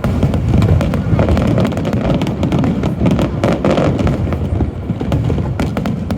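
Aerial fireworks going off in quick succession: many sharp cracks and bangs over a continuous low rumble.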